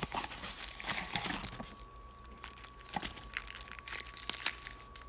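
Plastic parts packaging rustling and crinkling as it is handled, with small clicks and knocks of the parts; busiest in the first second and a half, then sparser handling sounds.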